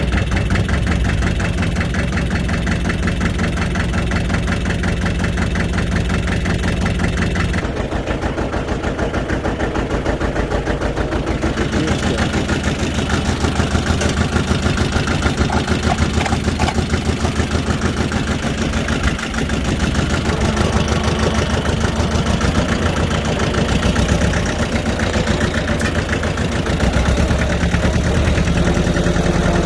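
Farm tractor engine just started and running, mostly at idle, its pitch shifting about eight seconds in and again around twelve seconds as the throttle changes.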